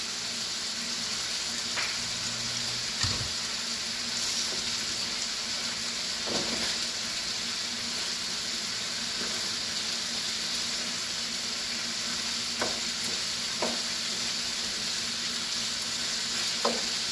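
Chicken, broccoli and carrots sizzling steadily in a frying pan as they are stir-fried, with a few scattered clicks of the spatula against the pan.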